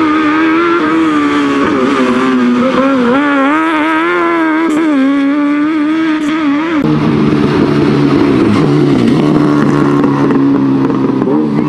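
Fiat 126p powered by a Honda CBR900RR motorcycle inline-four engine running at high revs, its note rising and falling with the throttle. About seven seconds in the sound cuts to a steadier, lower engine note as the car pulls away.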